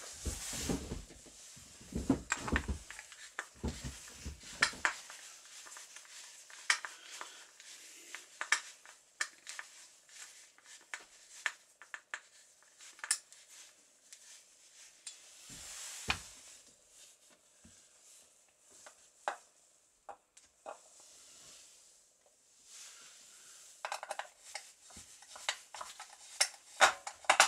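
Saw chain, guide bar and side cover of a Husqvarna 365 chainsaw being handled and fitted: scattered metal clinks and clicks, with a few duller knocks near the start and again about 16 seconds in.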